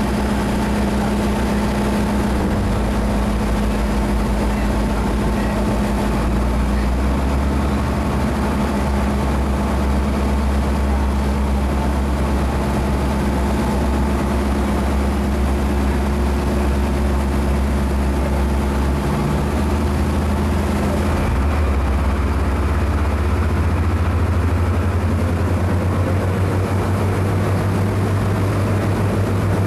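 Steady low drone of a vessel's engines under way at sea, its low hums shifting slightly in pitch a few times.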